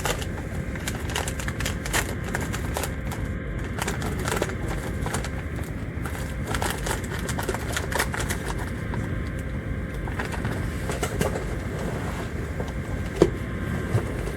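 Steady low rumbling background noise with frequent small clicks and rattles, and a sharper knock near the end.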